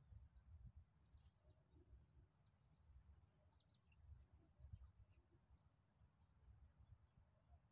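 Near silence: faint outdoor ambience with a steady high-pitched drone, a few faint bird chirps, and low wind rumble on the microphone.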